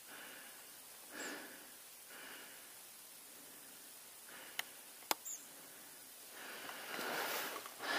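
A person creeping quietly through dry shoreline grass: soft rustling and breathing, a few light clicks midway, and the rustling growing louder near the end.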